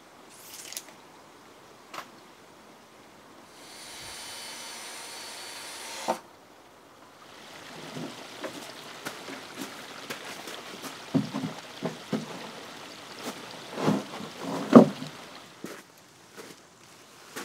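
Timber frame building: a power drill runs for about two and a half seconds, ending in a knock. Then come scattered wooden knocks and clatters as timber is handled and set down, the loudest near the end.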